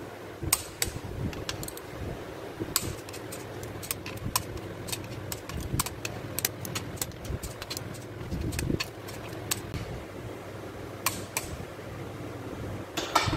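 A torque wrench tightening crankshaft main bearing cap bolts to 60 lb-ft, the first of two tightening stages. It makes irregularly spaced sharp metallic clicks over a low steady hum.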